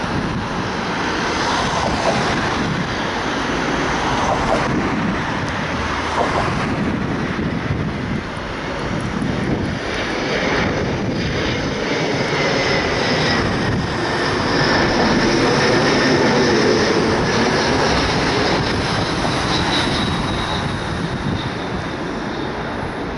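Embraer 170 airliner's twin General Electric CF34 turbofans landing: steady jet noise with a whine that glides down in pitch about halfway through, loudest a little past the middle.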